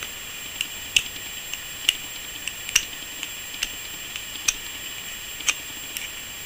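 Scissors scraped and tapped against coins, metal on metal: a series of short, sharp scrapes and clicks, the loudest coming about once a second with fainter ones in between.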